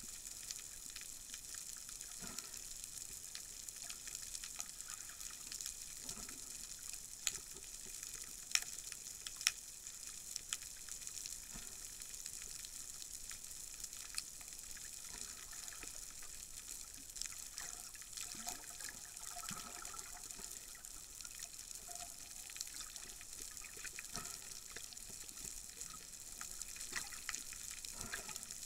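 Underwater ambience picked up by a camera below the surface: a steady hiss with scattered sharp clicks and crackles, a few louder clicks about a third of the way in.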